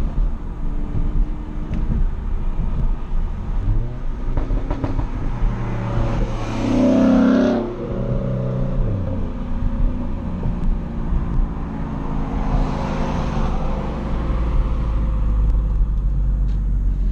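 Volkswagen GTI's turbocharged 2.0-litre four-cylinder, upgraded with an IS38 turbo, running under way with revs rising and falling. A louder, noisier surge lasts about a second around seven seconds in.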